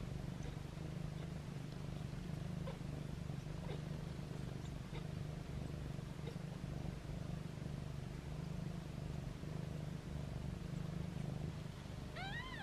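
Mother cat purring steadily, a low continuous rumble, with a few faint ticks over it. Near the end a newborn kitten gives one short, high meow that rises and then falls.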